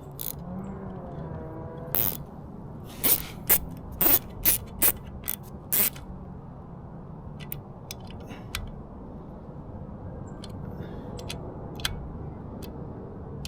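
Quarter-inch-drive ratchet with a 10 mm socket clicking as it snugs down the water pump housing bolts, with separate sharp clicks about two to six seconds in, then fainter, sparser ticks.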